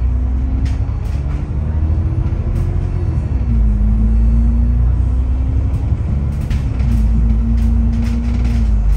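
Bus engine and drivetrain heard from on board: a low rumble with a whine that climbs as the bus gathers speed, drops sharply at a gear change about three seconds in, then holds nearly steady.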